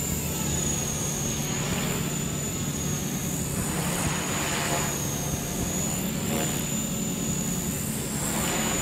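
Walkera V400D02 electric RC helicopter flying aerobatics: its brushed motor and rotors give a steady high whine that wavers slightly in pitch, and the rotor noise swells several times as it flips and rolls.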